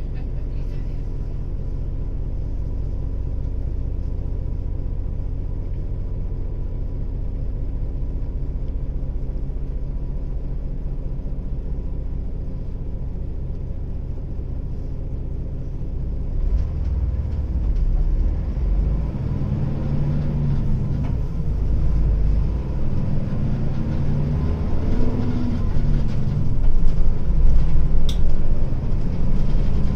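Hino Blue Ribbon city bus diesel engine heard from inside the bus, with an engine note a little different from a regular Blue Ribbon's. For about the first half it runs steadily, as at idle. After that its pitch rises and falls again and again as the bus pulls away and changes gear, growing louder toward the end, with one sharp click near the end.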